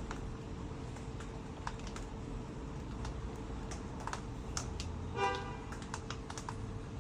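Light, scattered clicks and taps of small broken pieces of concrete and asphalt roofing being handled in gloved hands, over a steady hum. A brief horn-like tone sounds about five seconds in.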